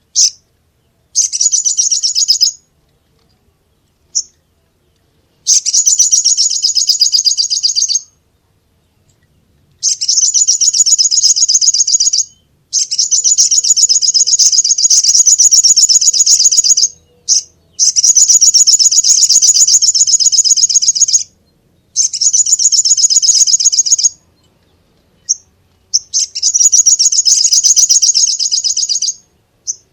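Crimson sunbird (sogok ontong) singing: high, rapid trilled phrases lasting one to four seconds each, separated by short pauses and a few single chirps.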